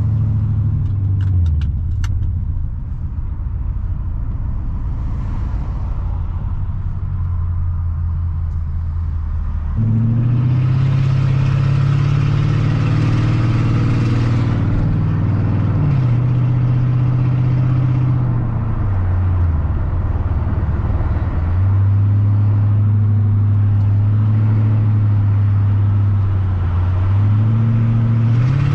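Mercedes-Benz W210 E55 AMG's 5.4-litre V8 driving the car: a steady engine note at first, then about ten seconds in it speeds up and gets louder under load, its pitch stepping down and climbing again through gear changes and rising near the end. The engine has a misfire that flashes the check engine light.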